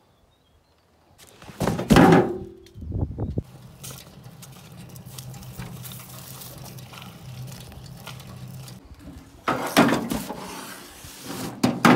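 Heavy cardboard box knocked and thumped as it is lifted and loaded, then a wheelbarrow rolling over tiled paving with a steady rumbling hum for about five seconds, then more thumps as the box is set down.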